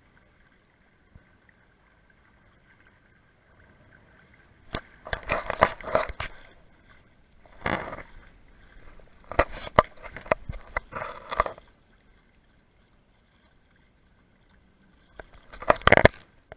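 DIY brushless kayak trolling motor running on a 4S battery with a faint steady whine, drawing more current than its 90 A ESC can handle. Several loud noisy bursts break in, about five seconds in, around eight and ten seconds, and again near the end.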